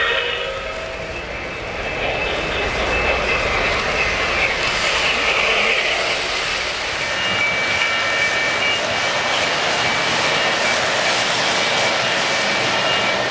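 Three-rail O-gauge model trains running on metal track: a steady rolling rumble and whir of wheels and motors as a passenger train passes close by.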